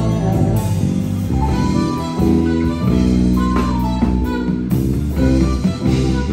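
Live band playing an R&B instrumental, with a saxophone lead over electric guitar, keys and drums. The saxophone slides into a note about halfway through.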